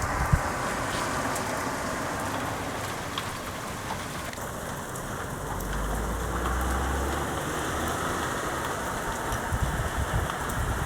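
Steady rain falling during a thunderstorm, with a brief low rumble about six seconds in.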